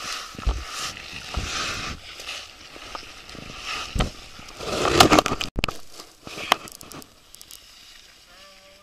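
Rescuers in immersion suits crawling and sliding on ice: suit fabric rustling and scraping over the ice, with scattered knocks, loudest in a burst about five seconds in.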